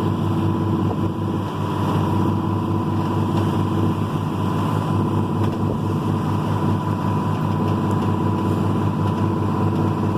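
Boat engine running steadily, a constant low hum with a thin high tone over it.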